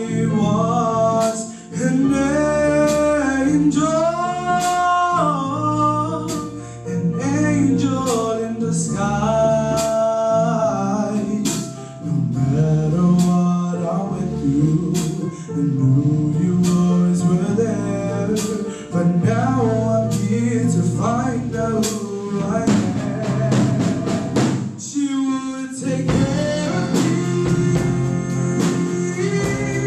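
Live band playing a song: a male lead vocal singing over electric guitar, bass guitar, keyboard and drum kit.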